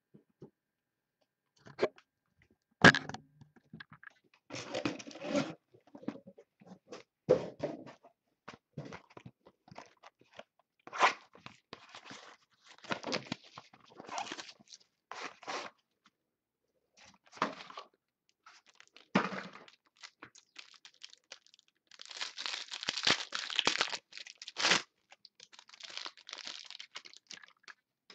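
Trading-card box packaging being torn open and crinkled, with cards handled and shuffled: irregular crackling, rustling and sharp clicks, densest and loudest near the end.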